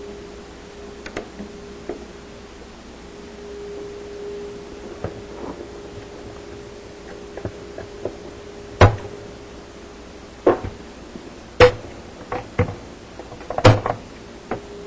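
Sharp plastic clicks and knocks as a dishwasher's lower spray arm and its plastic water-transfer piece are worked loose and pulled out, a handful of irregular snaps over a faint steady hum, the loudest three in the second half.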